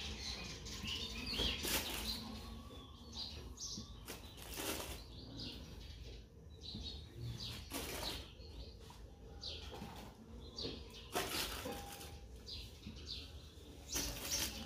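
Aluminium foil crinkling and rustling in short bursts as marinated chicken pieces are moved and pressed onto it in a steel pot. Birds chirp in the background.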